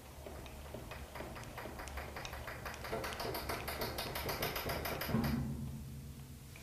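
Lathe carriage being hand-cranked along the bed by its apron handwheel: a fast run of clicks from the handwheel and carriage drive that builds up over a few seconds and stops about five seconds in.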